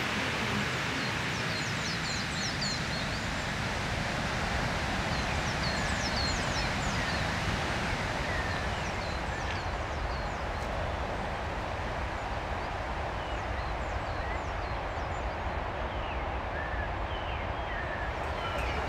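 Small birds chirping in quick, high, hooked notes, most thickly in the first half, over a steady rushing background.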